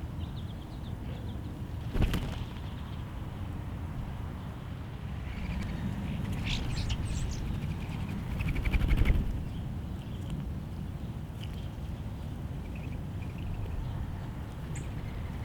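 Small backyard birds calling in short chirps, with a brief flurry of wingbeats about nine seconds in, over a steady low rumble. A sharp click sounds about two seconds in.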